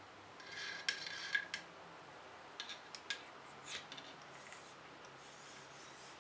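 Metal cleaning rod pushed through an AR-15 upper receiver into the barrel, scraping against the receiver with a rasp about half a second in, then scattered light metallic clicks and short scrapes.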